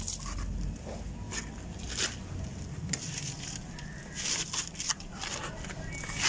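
Crumbly sand-and-gravel chunks crushed by hand and dropping into a basin of water: scattered crunchy, gritty crackles and sharp clicks over a dry sprinkling hiss of falling grains.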